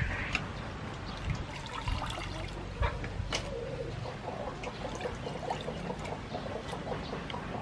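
Raw shrimp being washed by hand in water in a stainless steel bowl: water sloshing and trickling, with scattered light clicks as the shrimp are handled and lifted out dripping.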